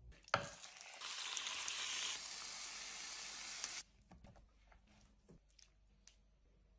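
Food sizzling in a hot frying pan: a sharp knock about half a second in, then a steady frying hiss that cuts off abruptly past the middle, followed by a few faint clicks.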